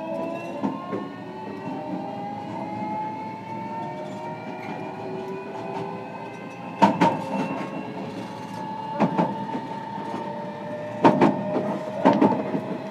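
JR Kyushu 305 series electric train heard from inside a motor car, its Toshiba permanent-magnet synchronous traction motors and inverter giving a whine of several tones that climbs in pitch over the first six seconds as the train gathers speed, then holds steady. Four loud clacks of wheels over rail joints come in the second half.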